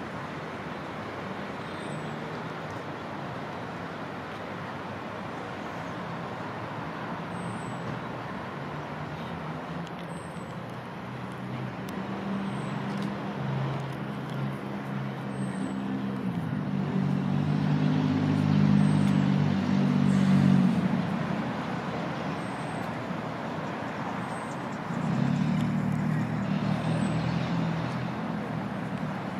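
Steady road traffic noise, with a motor vehicle's low engine hum growing louder about a third of the way in, peaking past the middle, then fading. It swells again briefly near the end.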